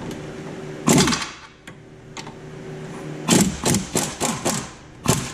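Impact gun with a 17 mm socket on an extension hammering a rear hub-bearing bolt loose: one short burst about a second in, then a quick run of short bursts from about three to five seconds in.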